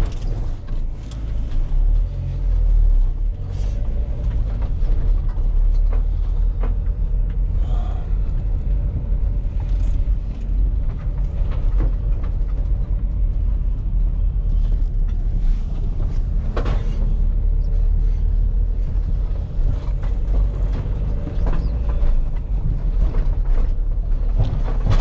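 Van engine and road rumble heard from inside the cab while driving, with some light knocks and a faint steady whine that the owner puts down to the alternator.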